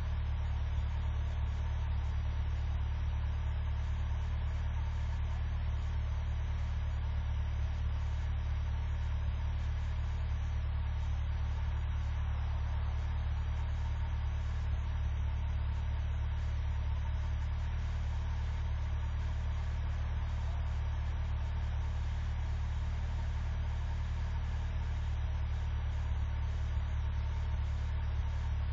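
Car engine idling steadily with an even low hum, warming up after a hard cold start in sub-zero weather.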